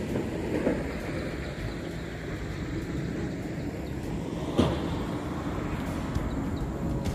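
Steady low rumble of wind on a handheld camera's microphone, with two brief knocks: one about a second in and one a little past the middle.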